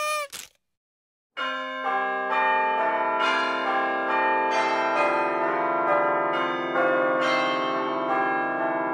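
Background music of long, layered held notes. It begins about a second and a half in, and new notes enter every half second or so.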